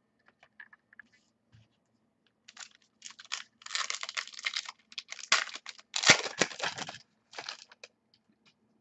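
A trading card pack's plastic wrapper being torn open and crinkled, a run of crackling rustles starting about two and a half seconds in, loudest around six seconds, after a few faint clicks.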